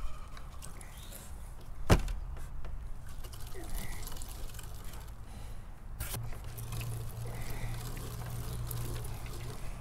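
Meat grinder working through partly frozen raccoon meat and beef fat, with a steady low hum and two sharp knocks, about two seconds and six seconds in.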